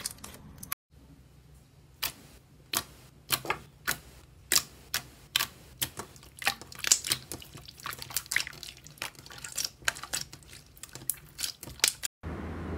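Fingers poking and pressing a glossy slime, each press giving a sharp click or pop, irregular, about one or two a second, after a brief silence about a second in.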